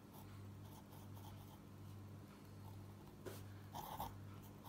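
Felt-tip pen drawing on paper: faint scratching strokes, a little louder about three and four seconds in, over a low steady hum.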